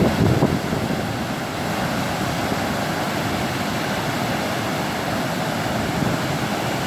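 Steady rushing of floodwater running through a desert wash, with wind buffeting the microphone and a louder gust at the start.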